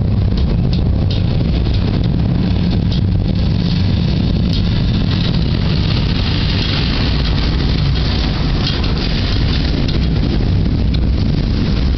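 Thunderstorm: steady rain with a continuous low rumble and scattered faint ticks.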